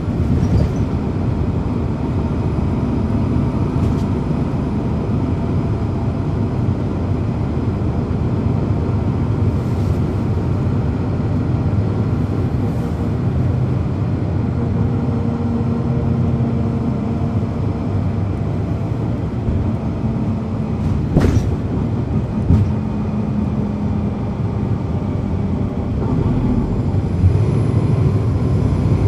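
Inside a 2010 NABI 40-SFW transit bus, its Cummins ISL9 diesel engine and drivetrain running with a steady low rumble. A humming tone rises out of it around the middle and fades again, and a sharp click is heard about three-quarters through.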